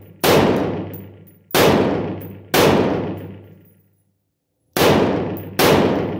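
AR-15 rifle with a Stag Arms 3G compensator firing five shots at an uneven pace, roughly a second apart, with a longer pause in the middle. Each shot is followed by a long echoing decay.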